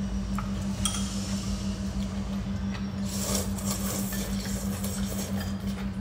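Kimchi ramen noodles being slurped, with a longer hissy slurp about three seconds in and a light click near the start, over a steady low hum.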